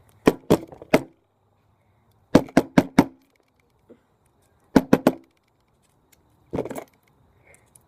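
Sharp clicks and knocks in short clusters of three or four, several seconds apart, from the small items of a compact survival kit being handled and unpacked.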